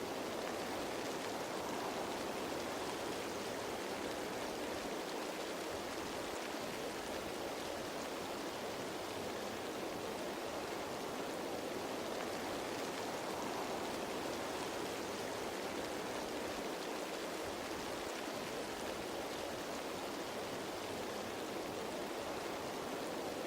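Steady rain falling on foliage, an even dense hiss with no single drops standing out.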